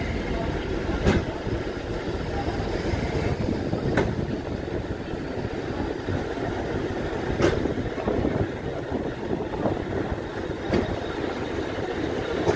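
TEM18DM shunting diesel locomotive hauling passenger coaches slowly past: a steady diesel and wheel rumble, with four sharp clacks a few seconds apart.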